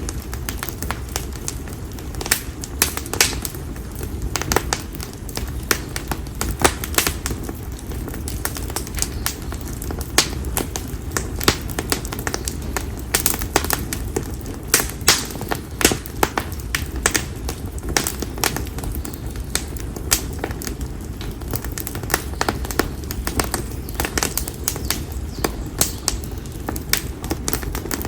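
Campfire of split konara oak logs crackling, with many sharp irregular pops over the low steady rush of the flames.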